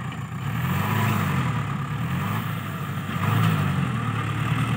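New Holland TS90 tractor's diesel engine working under load as it pushes soil with its front blade, its note swelling and rising twice, about a second in and again past three seconds. The owner says its diesel pump leaks but the engine still pulls with full power.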